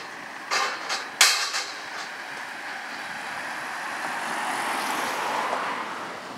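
A car passing on the road: tyre and engine noise swelling to a peak about five seconds in, then fading. Two brief scuffing noises near the start are the loudest moments.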